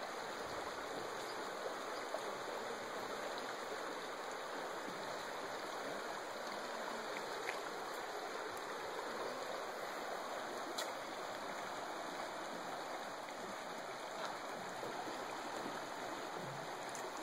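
Shallow rocky creek flowing steadily over stones, an even rush of water with no break.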